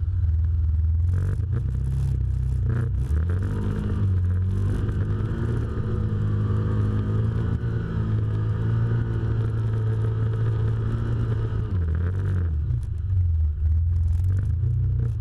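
Can-Am Commander side-by-side engine running under load through mud and water, revving up about four seconds in, holding, then easing off near the end. Sharp knocks and clatter of the machine over rough ground come in the first few seconds.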